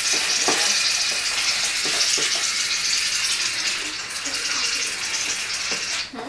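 Aerosol can of shaving cream spraying foam in one long, steady hiss that cuts off about six seconds in.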